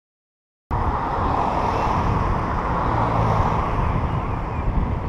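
Silence, then a steady rush of wind and road noise that starts abruptly under a second in, as picked up by a helmet-mounted GoPro Hero 3+ Silver's microphone while riding along a street.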